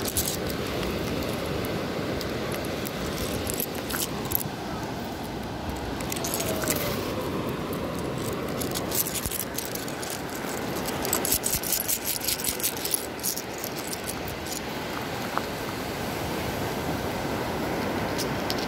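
Loose seashells clinking and rattling together in a hand, in scattered clusters of sharp clicks that are densest in the middle, over a steady background hiss.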